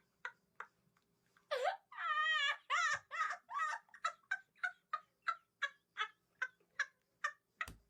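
Domestic fowl calling: a warbling call about a second and a half in, followed by a long run of short, evenly spaced clucks, about three a second. A short thump near the end.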